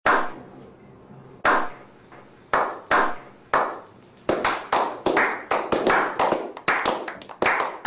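A few people clapping, with single slow claps about a second apart at first, then quicker, more frequent claps from about halfway through.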